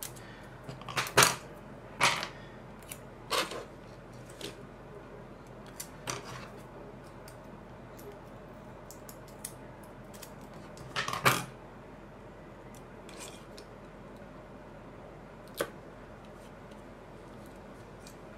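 Scissors snipping and small parts being handled as strips of Kapton tape are cut and pressed onto a camera shutter: about half a dozen short, sharp clicks and snips spread out with pauses between them, the loudest about a second in and about eleven seconds in.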